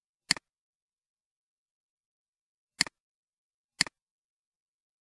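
Three computer mouse clicks, each a sharp press-and-release: one just after the start, then two about a second apart.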